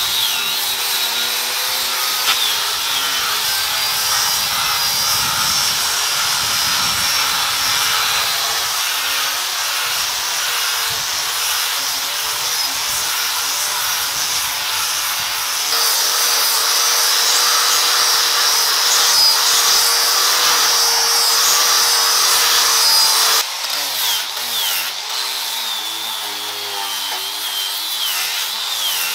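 Handheld electric disc sanders grinding over bare wooden floorboards. The motors whine steadily, and their pitch wavers as the discs are pressed into the wood. The sound changes abruptly about 23 seconds in.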